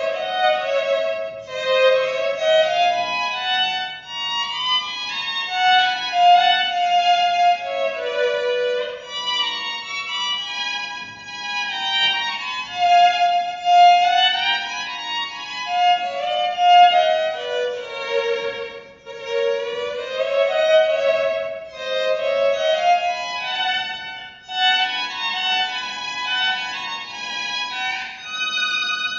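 Fretted electric violin playing a bowed melody through a harmonizer effects pedal. Each single note is doubled by a second voice a fixed interval away, so it sounds like double stops.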